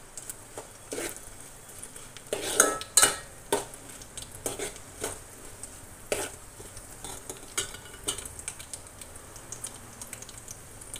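Metal spoon scraping and clinking against a metal pot while stirring a tempering of dried red chillies, garlic and dals in hot oil, with a light sizzle of the frying underneath. The scrapes come irregularly, loudest about two and a half to three seconds in.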